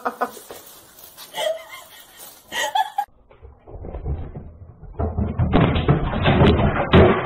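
A few faint voice sounds, then, about two seconds before the end, a run of loud repeated knocks and bangs over a rough rattling noise.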